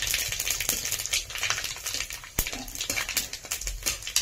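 Whole spices, cardamom among them, sizzling and crackling in hot oil in a pan, with one sharp clink of a metal utensil about two and a half seconds in.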